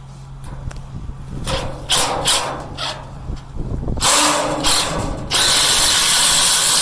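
Power drill driving screws through a steel cross-bracing strap into the steel frame: several short bursts, then a longer steady run near the end.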